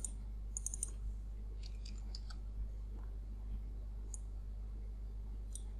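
Scattered short clicks from a computer mouse and keyboard: a quick cluster a little over half a second in, a few more around two seconds, and single clicks later. A steady low electrical hum runs underneath.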